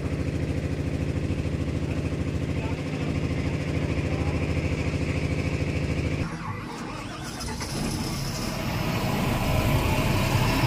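Heavy engine running steadily. About six seconds in, the sound drops suddenly and changes, then builds back up with a rising whine as the engine speeds up.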